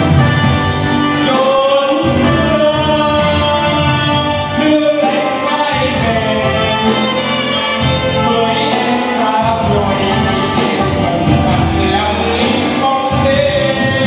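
A man singing into a microphone over live band music with a steady beat.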